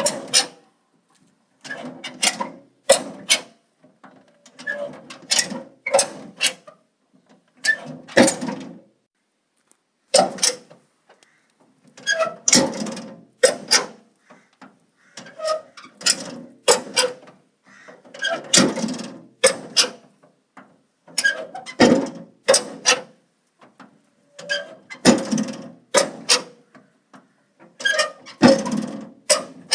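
Metal door being worked over and over: sharp metallic clicks and knocks of the latch and door come in clusters every two to three seconds, with short squeaks.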